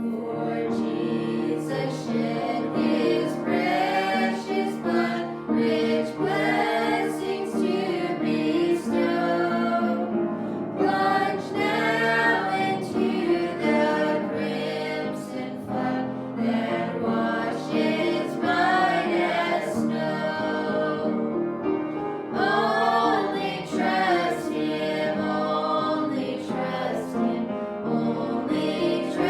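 Gospel song: voices singing a hymn over steady instrumental accompaniment.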